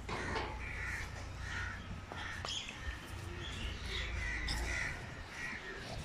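Birds calling again and again in short calls, over a steady low rumble.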